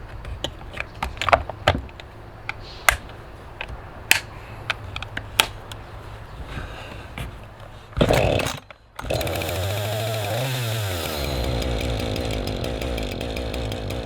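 Clicks and knocks of handling, then about eight seconds in a two-stroke chainsaw is pull-started and catches, running steadily at a low idle with one brief rev. It is the saw's first start in a year, just after its flooded spark plug was dried out.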